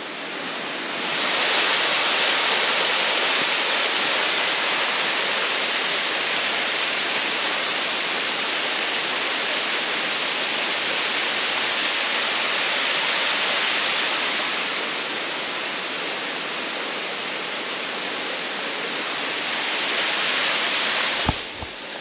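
Manoa Falls, a tall waterfall, plunging into its pool: a steady, loud rush of falling water that swells about a second in.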